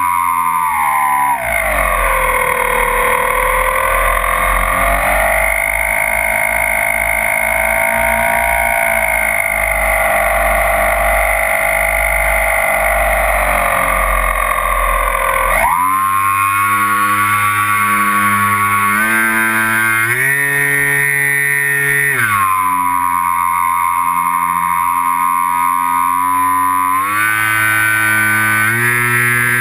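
Twin brushless electric motors and propellers of a Multiplex Twinstar RC plane whining, heard from on board. The pitch drops about a second in as the throttle comes back, with a low rumble underneath, then jumps sharply up about halfway through and steps up and down a few times near the end as the throttle changes.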